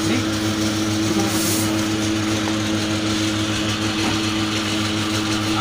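A machine's motor running steadily with a constant low hum.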